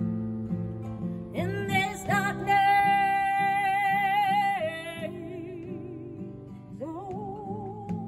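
A woman singing to her own acoustic guitar accompaniment. Her voice comes in about a second and a half in and holds a long high note, then sings lower, wavering phrases and rises again near the end.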